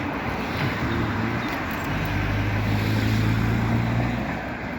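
Car driving, with engine hum and road noise. The hum swells about two seconds in, holds steady, then eases slightly near the end.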